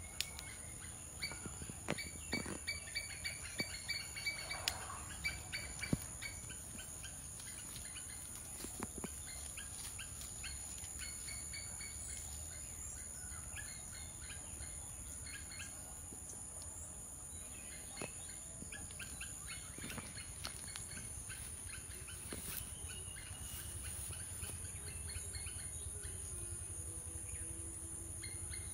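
Outdoor garden ambience: a steady, high-pitched insect drone throughout, with birds chirping in quick runs of short notes in the first few seconds and again around the middle, and a few scattered small clicks.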